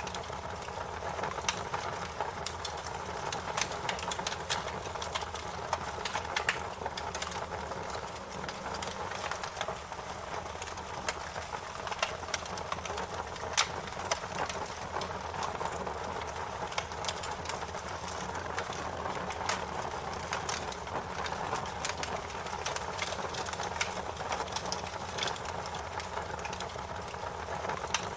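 Fire crackling: frequent, irregular sharp pops and snaps over a steady hiss.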